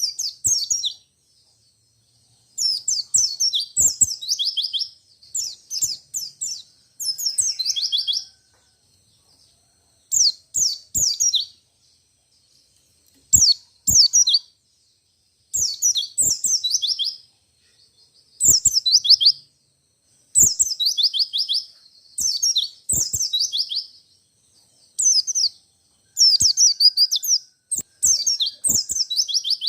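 White-eye (pleci, Zosterops) singing in repeated bursts of rapid, high-pitched notes, each burst about a second long, with brief pauses between.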